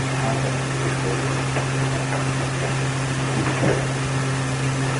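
Steady low hum with an even hiss over it, unchanging throughout: background noise under a pause in a lecture recording.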